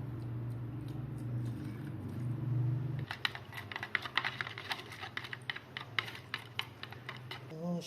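A steady low hum for about three seconds, then a run of quick, irregular light clicks or taps.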